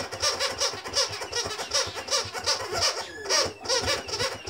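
A dog's squeaky toy squeaking rapidly and over and over, about four to five squeaks a second, as a Skye terrier presses and chomps on it.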